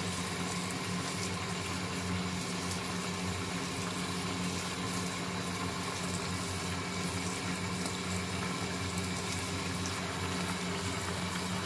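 Thick soy-based sauce bubbling and sizzling steadily around chicken thigh steaks in a double-sided grill pan, the sauce cooked down until nearly dry. A steady low hum runs underneath.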